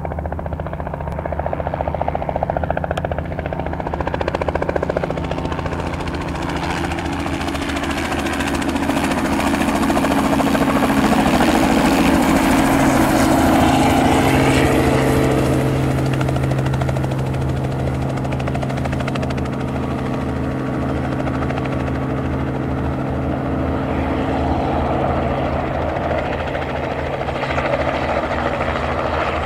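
Robinson R44 helicopter coming in to land, its two-blade main rotor beating over its six-cylinder Lycoming piston engine. It grows louder over the first half as it arrives, then holds steady as it hovers just above the pad.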